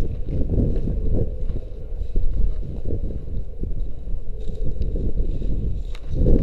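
Rumbling wind and handling noise on a body-worn camera's microphone, with scattered faint clicks over it.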